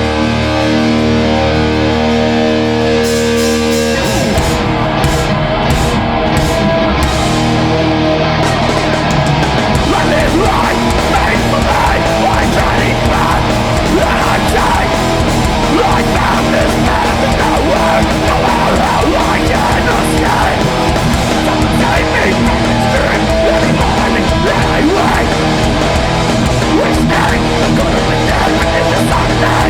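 Live heavy hardcore band playing with distorted electric guitars. A held guitar chord rings for about four seconds, then drums and the full band crash in with a fast, pounding beat.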